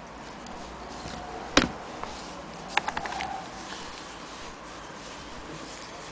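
A single sharp knock about one and a half seconds in, then a quick run of lighter clicks a second later, over a steady faint hiss: handling knocks around a small cast-iron sewing machine.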